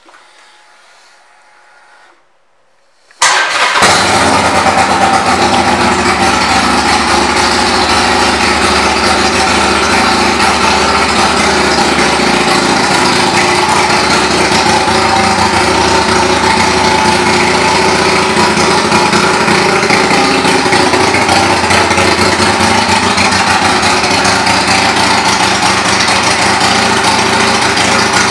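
2020 Harley-Davidson Iron 883's air-cooled 883 cc V-twin with an aftermarket exhaust fires up about three seconds in and settles into a steady, loud idle.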